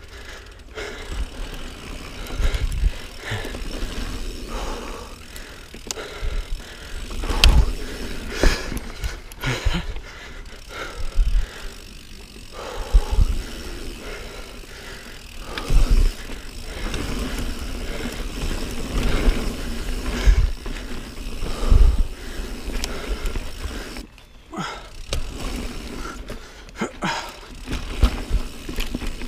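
Niner Jet 9 RDO full-suspension mountain bike ridden along dirt singletrack: continuous tyre and riding noise, broken by repeated sharp thumps as the bike hits roots and bumps.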